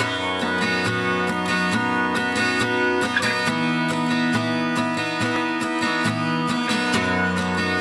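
Instrumental intro of a song: strummed acoustic guitar chords at a steady rhythm, starting abruptly out of silence.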